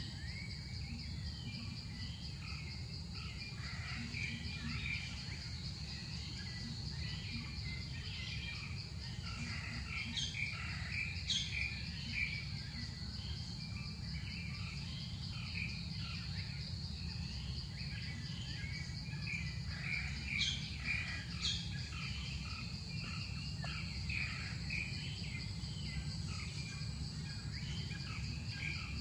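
Forest ambience: a steady high-pitched insect drone throughout, with birds chirping on and off over it and a steady low rumble underneath.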